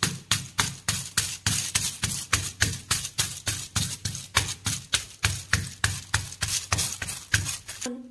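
Rapid, even slaps of a palm patting corn-flour roti dough flat on a plastic sheet, about four to five pats a second, stopping abruptly near the end.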